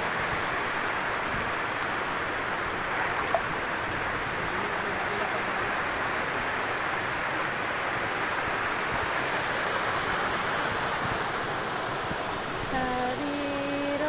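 Steady rush of a small waterfall cascading down rock into a pool, an even, unbroken noise.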